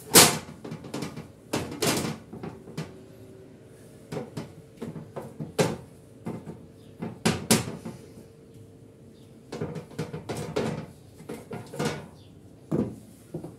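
Irregular knocks and clatters of a black metal baking tray bumping on a marble countertop while thin pizza dough is pressed and stretched into it by hand. The loudest knock comes right at the start.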